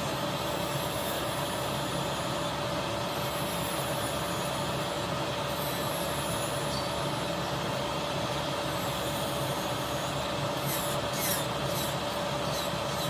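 Nail dust collector's fan running steadily with a constant hum, with faint high scratchy sounds near the end.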